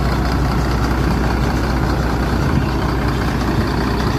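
Mercedes-Benz OH 1526 bus's diesel engine running steadily at low revs as the bus pulls slowly away, heard from behind through its box-type trapezoid exhaust.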